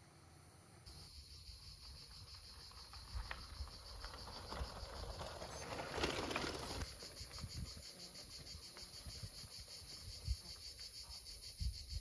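Insects buzzing in a high, steady drone with a fast even pulse, coming in about a second in, over low rumbling noise. A brief louder rush of noise about halfway through.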